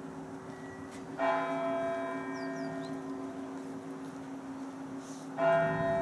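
Large church bell tolling slowly: two strokes about four seconds apart, one about a second in and one near the end, with the low hum of each stroke still sounding between them.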